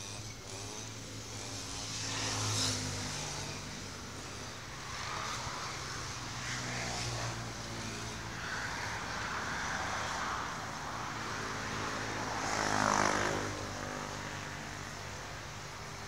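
Motor vehicle traffic: a steady low engine hum, with vehicles swelling past about two seconds in and again late on.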